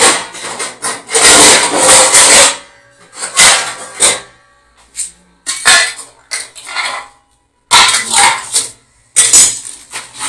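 Kitchen knife chopping onion against a board in several quick bursts of rapid strokes, with short pauses between the bursts.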